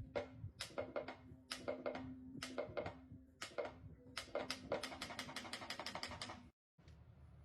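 Rapid, irregular clicking and tapping over a faint steady hum, cutting out briefly about six and a half seconds in.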